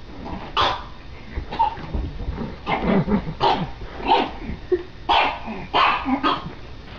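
Small fluffy dog yapping at its own reflection in a mirror: about eight short, sharp barks at an uneven pace.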